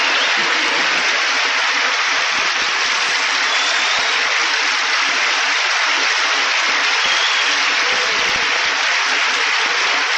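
A large audience applauding loudly and steadily, mixed with laughter.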